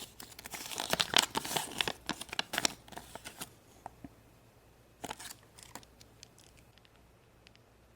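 Crinkling and tearing of a small plastic toy wrapper for about three and a half seconds, then a few light clicks and taps of small plastic parts.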